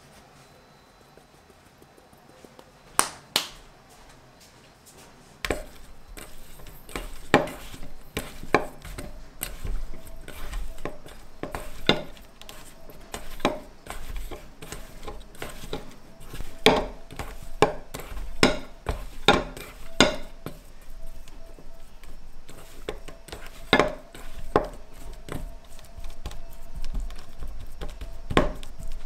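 Raw lamb pieces being mixed by hand with seasoning in a stainless steel bowl on a wooden table. Handling noise runs from about five seconds in, with many irregular sharp knocks and clinks of the steel bowl against the wood and a faint ringing of the metal.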